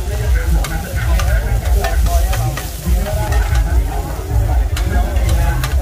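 Batter and bean sprouts sizzling on a large flat iron griddle, with metal spatulas scraping and clicking against the pan surface many times. A steady low rumble runs underneath.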